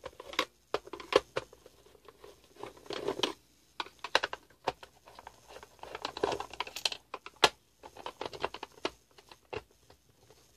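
Screwdriver working the screws out of a plastic litter box motor housing, with irregular clicks and taps and a few short scrapes as the tool and hands move over the plastic case.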